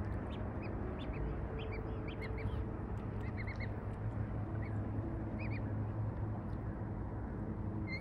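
Ducks calling on the water: a scattering of short, high quacking calls, busiest between about two and four seconds in and again briefly about five and a half seconds in, over a steady low background hum.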